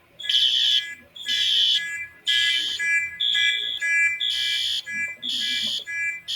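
A school voice-evacuation fire alarm system sounding its alert tone between recorded announcements. Loud electronic tone pulses come about once a second, with a second, purer high beep falling in between them.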